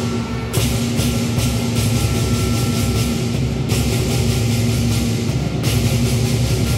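Traditional lion dance percussion: a big lion drum pounding under continuous clashing cymbals. The cymbal wash drops out briefly a couple of times.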